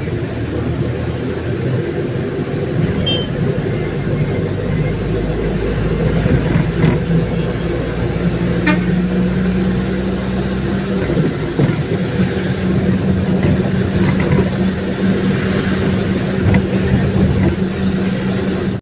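Town bus engine running, with road and traffic noise, heard from inside the moving bus. A steady low engine drone comes in about six seconds in.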